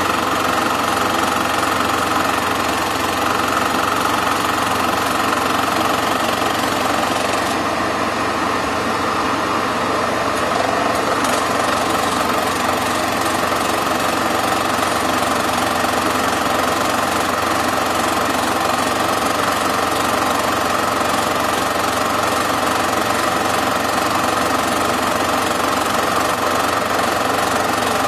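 Super 8 film projector running: a steady mechanical whirr and fast, even rattle of the film transport at a constant level.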